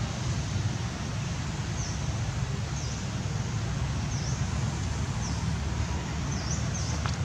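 A steady low rumble with a small bird's short high chirps repeating every second or so, and a single click near the end.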